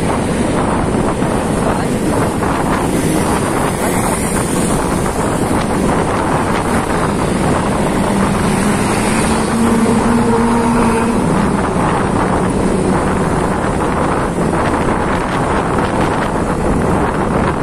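Steady wind rush on the microphone over the running of a Honda PCX 150 scooter's single-cylinder engine and its tyres on the road, at a steady cruise.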